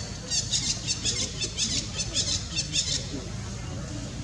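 Young long-tailed macaques squealing while they play-fight: a quick run of short, high squeaks, about four or five a second, that stops about three seconds in.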